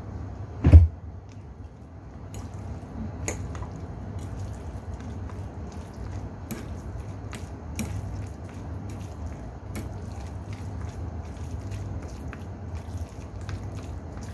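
Fork and chopsticks mixing minced meat and flour in a ceramic bowl: soft wet squishing with scattered light clicks of the utensils against the bowl, and one louder knock about a second in. A low steady hum runs underneath.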